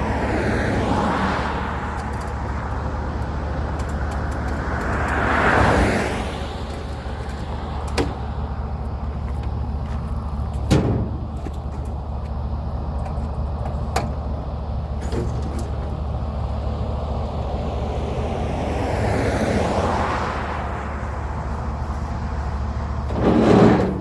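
Engine running with a steady low hum, swelling louder and fading away three times, with a few sharp clicks between.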